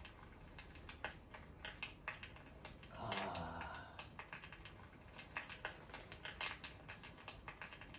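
Irregular soft crackling clicks from a fireplace video playing on a tablet. About three seconds in, a slurping sip of café latte from a mug.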